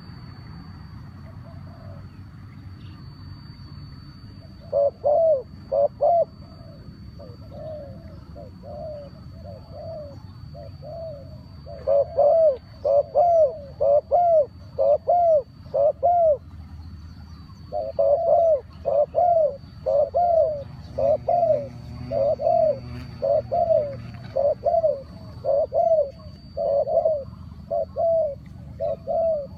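A bird calling: a long series of short, loud, repeated notes, about two a second, starting about five seconds in and pausing briefly near the middle. A faint steady high tone runs underneath.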